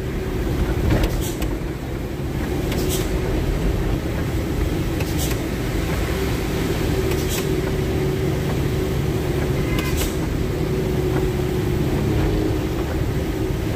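Truck running on the road: steady engine and road rumble with a constant hum, and a few sharp clicks a couple of seconds apart.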